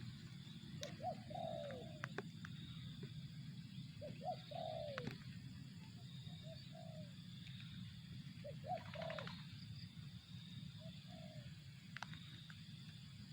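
Spotted dove (tekukur) cooing: three-note coo phrases about every four seconds, with shorter single coos between them, over a faint steady high buzz.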